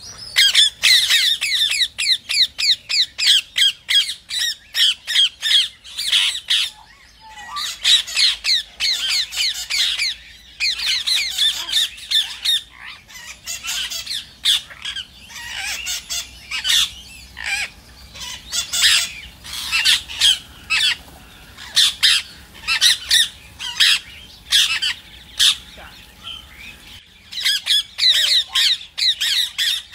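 Rose-ringed parakeets squawking: runs of shrill, rapid calls, several a second, broken by short pauses.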